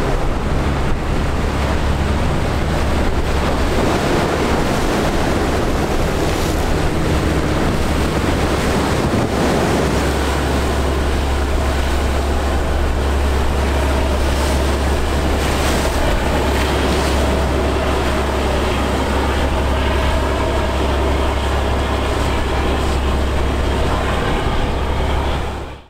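Wind buffeting the microphone over waves and boat wake, with a fishing boat's engine droning as it passes in the second half. The sound fades out near the end.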